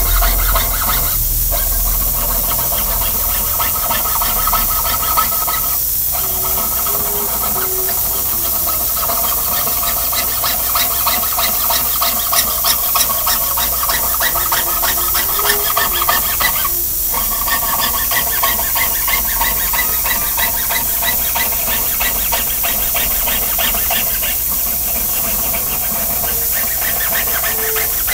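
Jeweller's piercing saw cutting a thin metal sheet on a wooden bench pin: a steady, rapid rasp of the blade's strokes, broken by four brief pauses.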